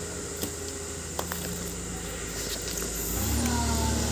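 An engine running steadily at low pitch, growing louder about three seconds in, with a few faint clicks before it.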